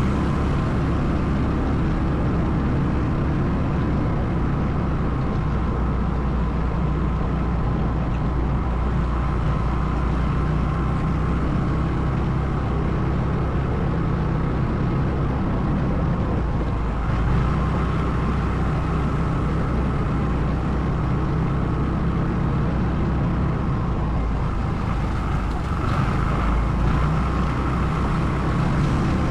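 ATV engine running steadily while riding, a continuous low rumble that swells slightly a little over halfway through and again near the end.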